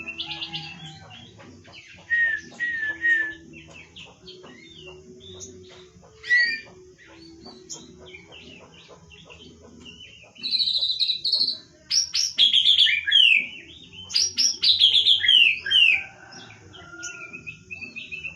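A white-rumped shama sings in loud bursts of varied whistles, slurred notes and rapid trills, in the song style fanciers call "nembak" (shooting). It includes its imitation of the cililin. Softer calls come between the bursts, and the densest, loudest run of song starts about ten seconds in and lasts several seconds.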